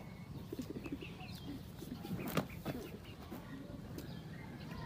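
Chickens clucking, with short high chirps and one sharp tap about two and a half seconds in.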